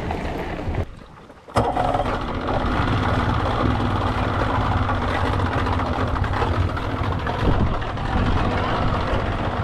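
An engine running steadily with a low hum. The sound drops away briefly about a second in, then comes back suddenly and louder.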